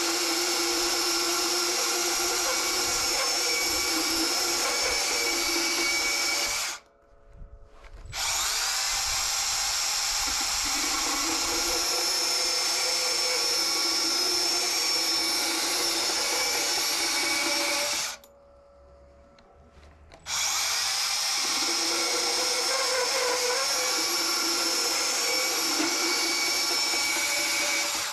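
Makita DPB184 18V cordless brushless sub-compact band saw cutting rusty steel angle iron, running with a steady high whine. It stops twice for a second or two and winds back up to speed each time.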